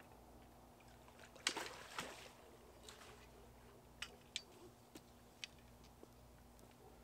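Water splashing as a channel catfish is scooped into a landing net: two splashes about half a second apart, the first the loudest. A few short sharp clicks follow.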